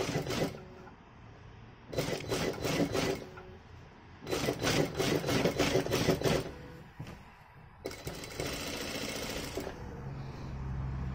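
Electric sewing machine stitching a hem through the folded skirt fabric in three short runs, stopping between them as the fabric is adjusted, with a steady low motor hum near the end.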